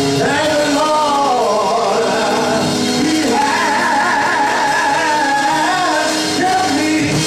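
Gospel singing: a male voice sings a wordless, wavering melody with vibrato over sustained keyboard chords.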